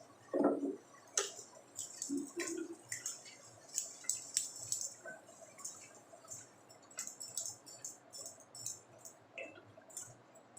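Stir-frying in a pan: irregular clicks, scrapes and crackles as a spatula works through chive flowers and shrimp.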